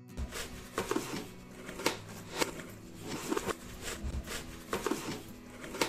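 Plastic bag crinkling and a cardboard box rustling as a plastic-wrapped part is pushed back into the box and the flaps are folded shut. It comes as a string of irregular crackles and sharp taps.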